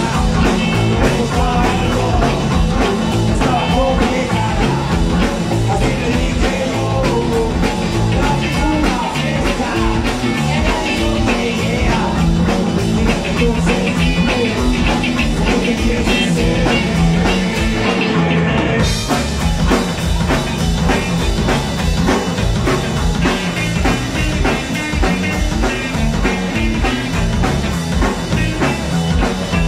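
Live rock and roll band playing at full volume: drum kit keeping a steady beat under electric guitar and bass.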